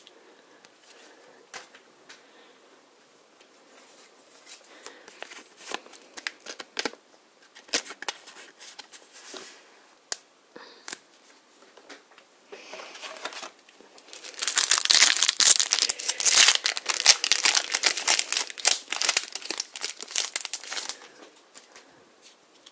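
Foil wrapper of a Magic: The Gathering booster pack being torn open and crinkled, loudest as a dense stretch of crackling in the second half. Before it, scattered light clicks and rustles of handling.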